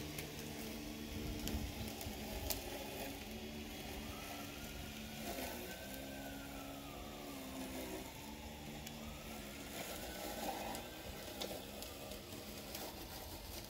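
Home-built RC lawn mower running: a 775 brushed motor salvaged from a cordless drill spins 3D-printed blades on an RC crawler chassis. The motor tones shift up and down in pitch as it works, and a higher whine rises and falls twice.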